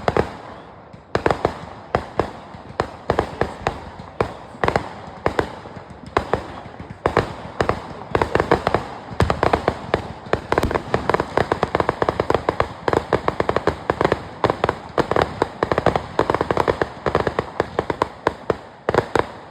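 Fireworks going off in a dense barrage of sharp bangs and crackles, several a second, growing denser about halfway through and stopping abruptly at the end.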